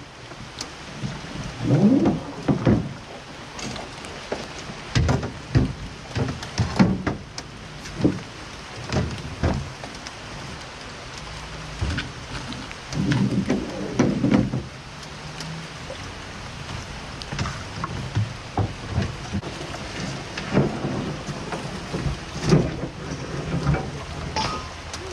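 Rain pattering on the camera and drift boat, with irregular knocks and thuds of gear being handled in the boat.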